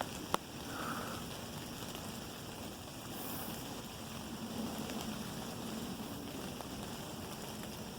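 Quiet woodland ambience: a steady low hiss of air and background noise, with a sharp click or two shortly after the start.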